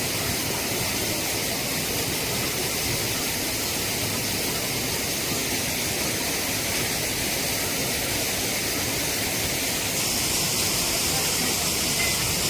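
Waterfall: falling water rushing as a steady, even noise, growing a little louder and brighter about ten seconds in.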